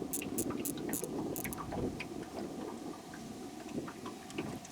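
Handling noise: scattered small clicks and rustles over a low rumble, as fishing rods and tangled lines are worked in a boat. The clicks are thickest in the first second or so.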